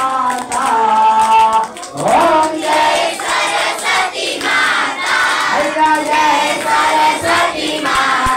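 A group of children singing together in unison, with hand clapping along.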